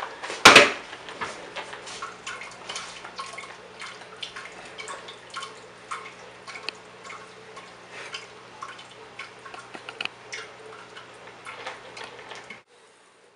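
Chicken stock being strained: a loud metal clank about half a second in, then liquid dripping and trickling through a strainer with many small clicks, over a steady low hum. The sound cuts off suddenly shortly before the end.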